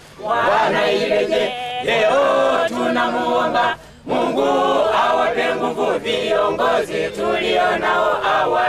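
A small group of voices singing together without instruments, a choir-style community song with a brief break about four seconds in.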